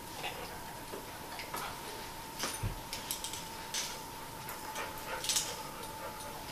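Scattered light clicks and taps, one duller thump a little before the midpoint, and a faint steady hum underneath, as a dog and its handler move about during training.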